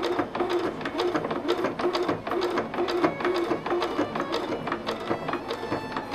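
Juki HZL-F400 computerized sewing machine stitching slowly and evenly through eight layers of folded duck canvas, at about two stitches a second. Each stroke knocks as the needle punches through the thick fabric.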